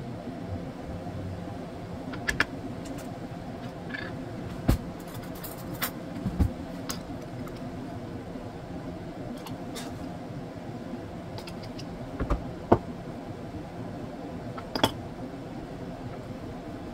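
Kitchen utensils clinking and tapping: a plastic citrus juicer and bowl handled, and a metal spoon in a glass mustard jar, giving a dozen or so short, sharp clicks over a steady low hum.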